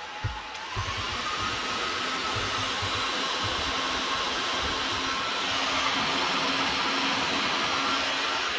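Heat gun blowing hot air steadily, shrinking heat shrink tubing onto a 6-pin DEUTSCH DT connector. It gets a little louder about a second in, and there is a light knock just after it begins.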